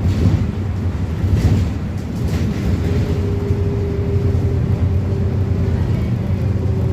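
Mercedes-Benz OF-1721 BlueTec 5 bus's four-cylinder diesel engine running with a steady low drone and a few short rattles. A faint steady whine joins in about three seconds in.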